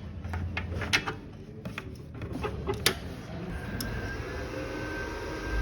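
Inverter welding machine being set up and started: a few sharp clicks and knocks of handling in the first three seconds, then a steady high whine with a light hiss from about three and a half seconds in, over a low hum.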